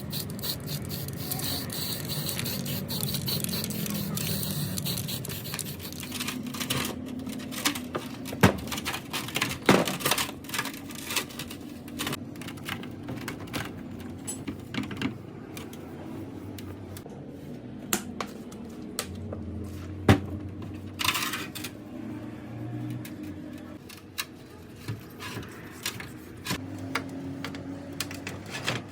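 Irregular light clicks and taps from hand work on a gearbox part, with two sharper knocks, about eight seconds in and about twenty seconds in.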